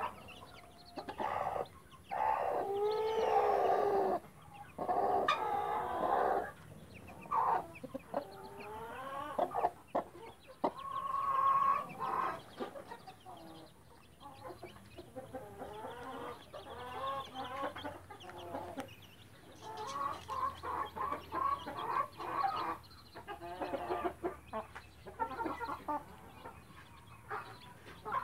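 Hens clucking and calling on and off, a series of drawn-out calls that rise and fall in pitch.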